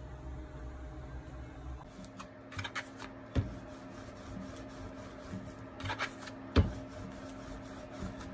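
Wooden rolling pin rolling out bread dough on a wooden board: soft rubbing strokes with scattered clicks and knocks of wood on wood, two sharper thumps about three and six and a half seconds in. A steady low hum runs underneath.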